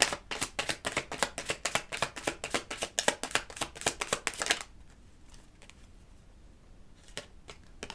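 A deck of tarot cards being shuffled by hand: a fast run of card slaps and clicks, about seven a second, stopping about four and a half seconds in. A few soft card ticks follow.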